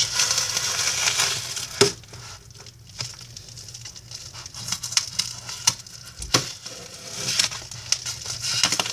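Padded paper mailer envelope rustling and crinkling as it is handled, with a few sharp taps in between.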